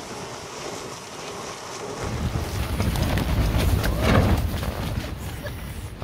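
Gale-force wind rushing over the tents and buffeting the microphone; about two seconds in, heavier gusts bring a loud low rumble that peaks about four seconds in and then eases.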